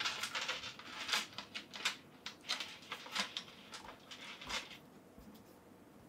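Hands handling a plastic sixth-scale action figure and its parts: a run of light clicks and rustles that stops about five seconds in.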